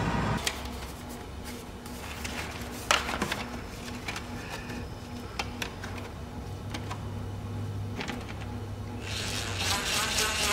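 Scattered clicks and rattles of screws and a licence plate being handled against a truck bumper. About nine seconds in, a DeWalt cordless impact driver starts hammering in rapid strokes as it drives the plate screws into the bumper.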